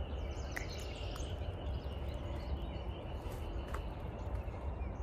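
Outdoor ambience: a low rumble on the microphone, with a thin steady high buzz like insects and a few bird chirps about a second in.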